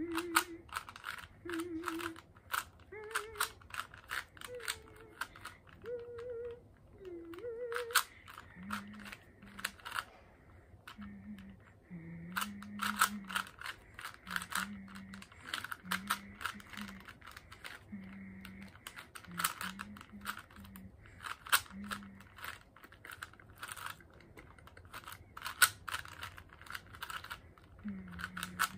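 Plastic Rubik's Cube being turned fast during a solve, a rapid irregular stream of clacking clicks as the layers twist. A person hums short notes over it, higher-pitched at first and lower later on.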